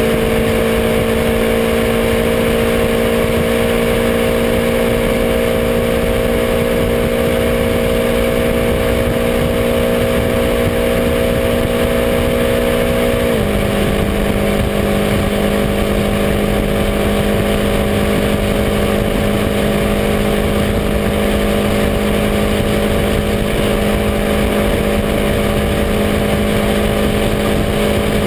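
BMW M5 F10's 4.4-litre twin-turbo V8 under full throttle near 300 km/h. It holds a steady high note in fifth gear, then upshifts to sixth about halfway through, and the note drops at the shift before running on under load. A constant rush of wind and road noise lies underneath.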